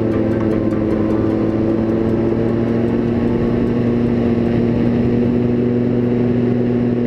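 Paramotor engine running steadily at cruise power: a constant drone that holds one pitch throughout.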